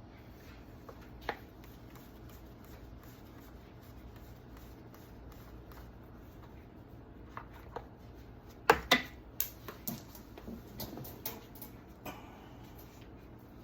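Scattered clicks and light knocks of chainsaw parts and tools being handled during cleaning, with a brief cluster of louder knocks about nine seconds in, over a low steady hum.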